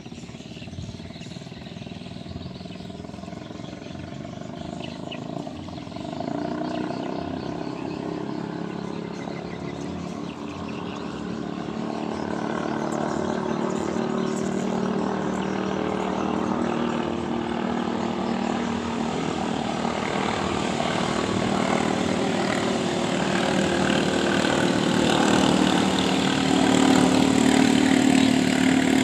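Racing ketinting (longtail boat) engine running flat out at a steady high speed, growing steadily louder as the boat speeds closer across the water.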